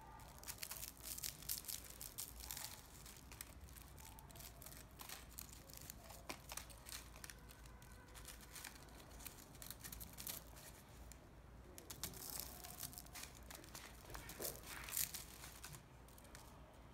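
A tea pick prying dry leaves off a compressed pu'er tea cake: faint, irregular crackling as the pressed leaves break loose, with the paper wrapper crinkling under the hands.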